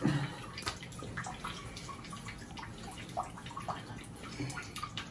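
Bathwater in a tub splashing and dripping lightly, in many small scattered splashes.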